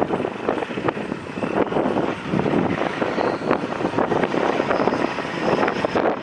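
Caterpillar C15 inline-six twin-turbo diesel of a Kenworth W900L semi truck running, with its catalytic converter removed and the exhaust straight-piped; a steady, rapid throbbing.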